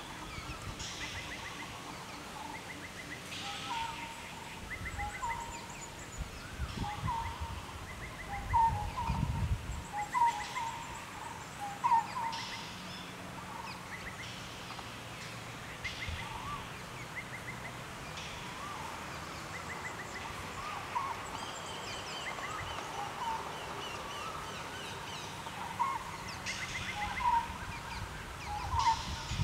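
Birds calling: short rising chirps repeated every second or so, with quick chattering runs of higher notes. A brief low rumble comes about eight seconds in.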